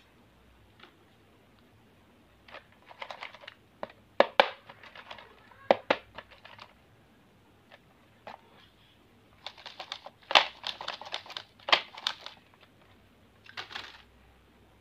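Hard plastic pencil boxes and wrapped candies being handled: scattered sharp plastic clicks and clacks, with bursts of wrappers crinkling, in several short clusters.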